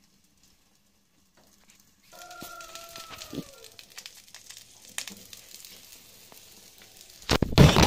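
Omelette frying under a glass lid in a non-stick pan, a steady sizzle starting about two seconds in, with a brief falling tone soon after. Near the end there is a loud clatter of handling at the pan and lid.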